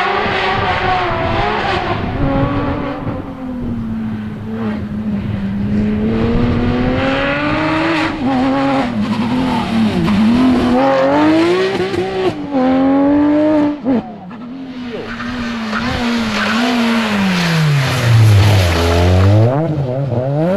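Rally cars at full speed on a gravel stage: a Porsche 911 GT3's flat-six revving hard and falling back through gear changes as it passes. After a break about two-thirds of the way in, a Renault Clio rally car's engine drops to low revs as it slows, then revs up again near the end.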